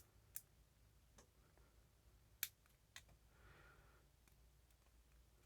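Lock pick clicking against the pin stacks inside a vintage Eagle barrel padlock under tension: a few sharp, scattered clicks, the loudest about two and a half seconds in, with fainter ones near the end.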